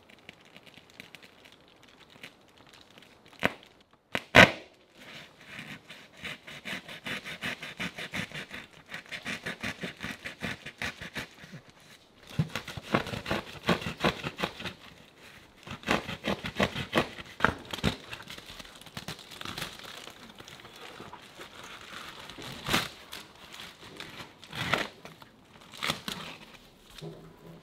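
Knife blade sawing through the yurt's fabric wall cover, quick rasping strokes in runs, with one sharp snap about four seconds in as the blade punches through.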